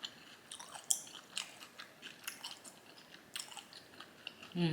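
Close-up mouth sounds of someone eating soft rice-paper sushi rolls: irregular wet lip-smacks and chewing clicks, several a second. A brief low sound from the throat comes near the end.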